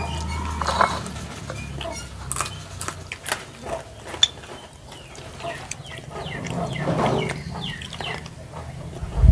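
Chickens clucking in short calls, over small clicks and smacks of people eating with their hands.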